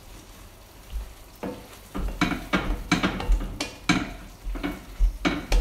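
Wooden spoon stirring a thick curry sauce in a wide pan and scraping the bottom, deglazing the browned spices. The strokes start about a second and a half in and come about three a second, with the sauce sizzling in the hot pan underneath.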